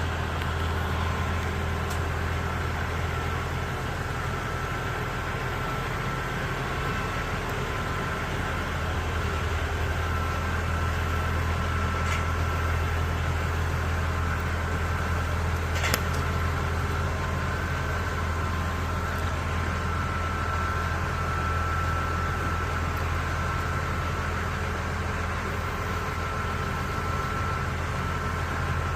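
Heavy diesel engine of construction equipment running steadily at low revs, with a faint steady high whine over it. One sharp click about halfway through.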